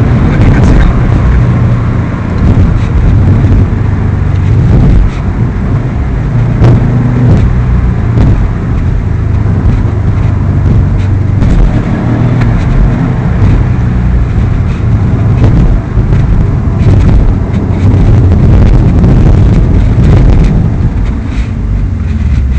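Subaru WRX STI's turbocharged flat-four engine running loudly under way, a deep rumble whose pitch steps up and down, with scattered sharp knocks.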